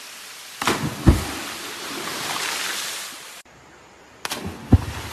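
Steady rushing of a waterfall, broken by sudden thumps and splashes as people jump into the water: a pair about a second in, the second the loudest, and another pair near the end.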